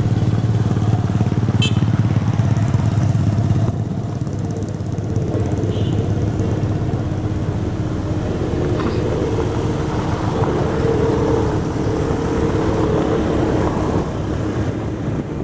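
A road roller's diesel engine running loudly and steadily with a deep drone. It gets somewhat quieter about four seconds in.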